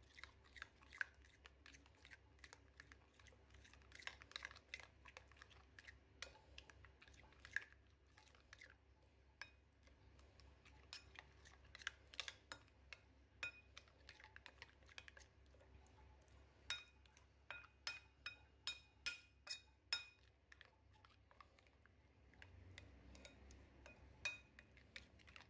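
A metal spoon stirring a thick yogurt and spice marinade in a bowl, with faint, irregular clinks and scrapes of the spoon against the bowl's sides, coming closer together in the second half.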